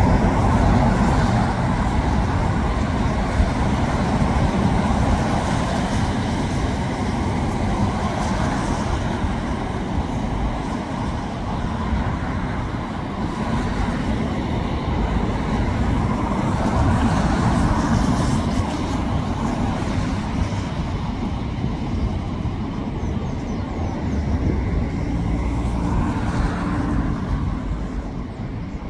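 Road traffic noise from cars passing close by, a steady rumble that swells and fades several times as vehicles go past.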